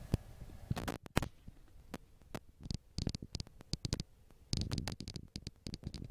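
Scattered clicks and rubbing close to the microphone, like camera handling noise, starting after an abrupt break about a second in.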